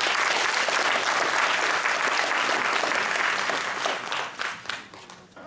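Audience applauding. The clapping fades after about four seconds to a few scattered claps.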